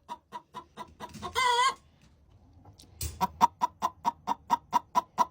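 Hens clucking: quick runs of short clucks, a drawn-out call about a second and a half in, then a faster run of clucks, about five a second, from about three seconds in.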